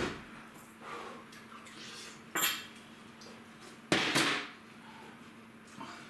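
Knocks and clatter of a plastic mop bucket and mop being handled and set down on the floor: a knock at the start, a sharp clack about two and a half seconds in, and the loudest clatter about four seconds in as the bucket goes down.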